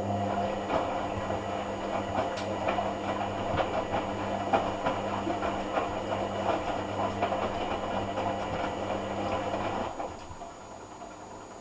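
Hoover AC166 Classica 1200 automatic washing machine running on its cotton rinse: a steady mains motor hum with irregular clicking and clatter over it, which stops suddenly near the end.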